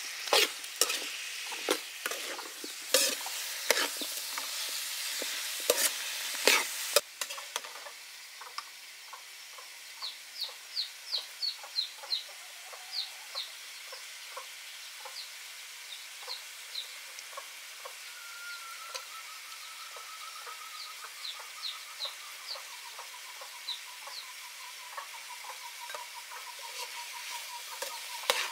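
Sauce sizzling in a wok of stir-fried pork ribs with pineapple and bell peppers while a metal ladle stirs and scrapes it, with sharp clinks of metal on the wok for the first seven seconds. After that the sizzle is quieter and steady, broken by short high bird chirps in small runs, and in the second half by a faint pulsing tone that slowly falls in pitch.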